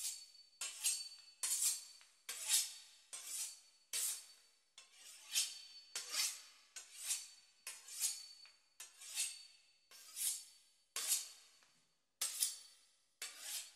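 A knife sawing through the crisp pastry crust of a beef Wellington: a steady run of short slicing strokes, a little more than one a second.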